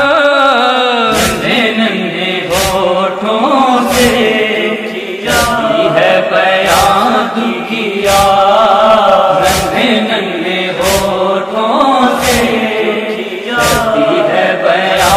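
Male voices chanting a noha lament in long, wavering phrases without words the recogniser could pick out, over a steady heavy beat about once every second and a half: the chest-beating (matam) rhythm that keeps time for a noha.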